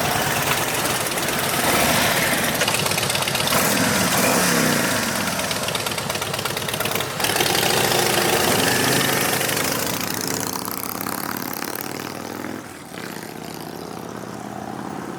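An engine or motor running, its pitch rising and falling several times, growing quieter in the last few seconds.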